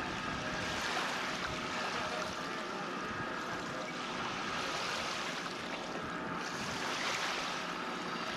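Water rushing and splashing along the hull of a boat under way, rising and falling every few seconds, with wind noise.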